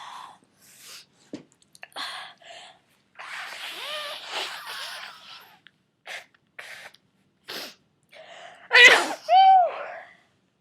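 A person with a cold in a sneezing fit: short sharp breaths and a long, drawn-out voiced stretch in the middle, then one loud sneeze with a voiced 'choo' near the end, the loudest sound.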